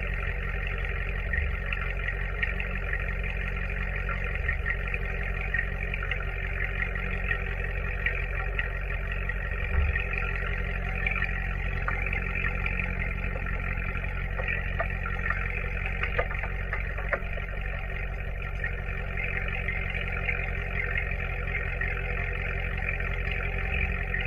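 Supercharged C7 Corvette's 6.2-litre V8 exhaust droning steadily at an even cruising speed, with no revving, heard right beside the quad exhaust tips. A steady hiss lies over it, with a few brief low thumps.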